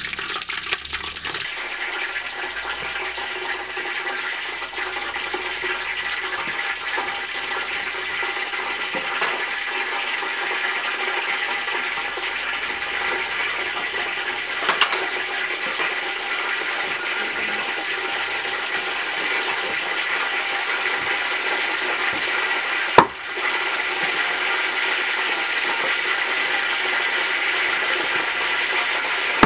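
Steady hiss of a metal cooking pot heating over a wood fire. A single sharp knock comes about three-quarters of the way through.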